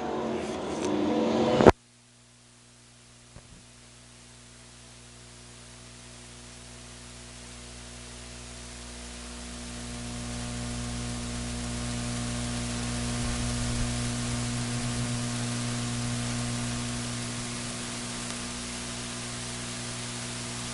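Race cars running on the dirt oval for under two seconds, then the sound cuts off suddenly, leaving a steady hum with hiss that slowly grows louder.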